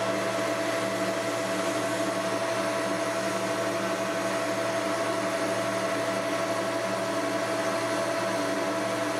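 Metal lathe running steadily while a carbide boring bar takes a pass inside a bore in 4140 steel bar. The sound is an even mechanical hum with a constant higher tone over it.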